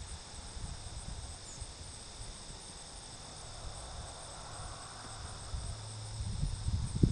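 Steady high-pitched chorus of crickets trilling, with an uneven low rumble of wind on the microphone that grows stronger near the end.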